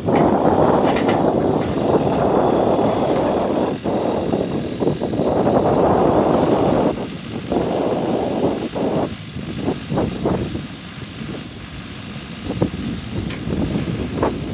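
Tractor engine running as it works a stone-picking machine, with heavy wind buffeting on the microphone. The rushing noise eases about halfway through, leaving the engine and a few sharp knocks.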